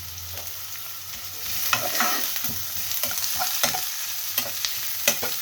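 Chopped capsicum, onion, garlic and dried chilli sizzling in hot oil in a pan while a spatula stirs them, scraping and knocking against the pan in short irregular strokes. The sizzle grows louder about a second and a half in.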